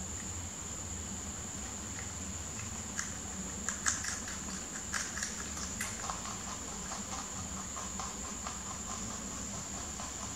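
Rabbits munching leafy green stems: small crisp crackles and quick fine ticks of chewing and torn leaves, busiest from about three seconds in. A steady high-pitched whine and a low hum run underneath.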